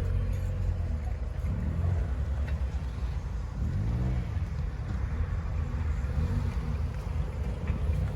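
Road vehicle engine running while on the move, a steady low rumble, with a brief rise and fall in pitch about four seconds in.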